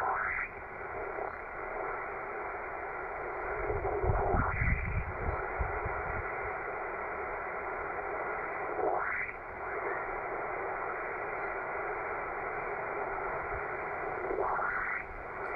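Shortwave receiver hiss from a Yaesu FT-450D transceiver's speaker on a quiet 80-metre band, held to the narrow single-sideband passband. About every four to five seconds a short whistle sweeps up in pitch through the hiss, four times in all.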